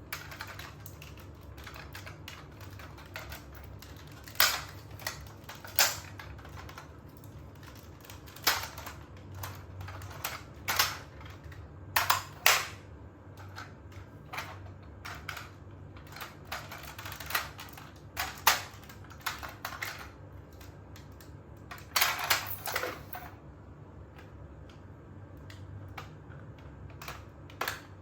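Irregular plastic clicks and knocks from a DX Tridoron toy car being handled, some in quick pairs, over a steady low hum.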